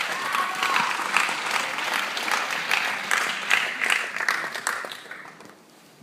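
Theatre audience applauding, a dense patter of many hands clapping, which fades out about five seconds in.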